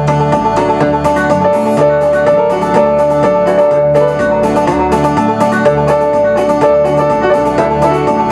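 Lowrey Stardust home organ playing a country tune: a held melody line over an alternating bass and a steady rhythm accompaniment.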